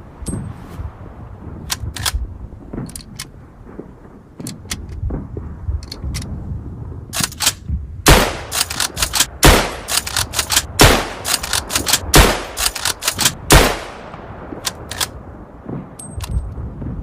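Springfield rifle firing: sharp shots, the heaviest five coming about a second and a half apart in the middle, among many lighter, quicker cracks and clicks.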